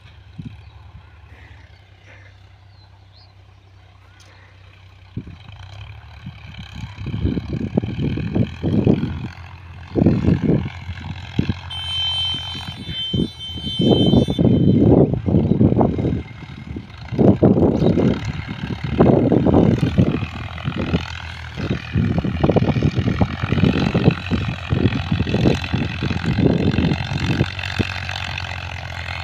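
Two diesel farm tractors, a Sonalika DI 50 Sikander and a Powertrac Euro 50, running as they work the field at a distance. Their engines give a steady hum, with uneven louder surges of rumble from about five seconds in.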